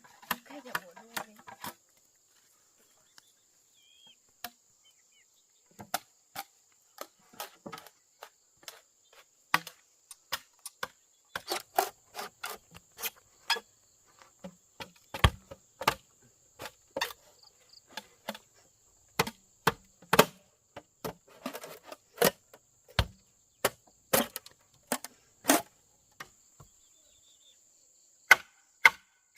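Irregular sharp knocks of a tool striking wood, some loud and some faint, coming in uneven clusters after a quiet stretch in the first few seconds. A steady high insect drone runs underneath.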